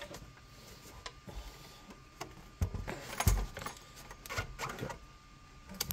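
The open metal chassis of an Icom AT-500 antenna tuner being handled and turned around on a wooden workbench: a scatter of clicks and knocks, with two heavier thumps around the middle.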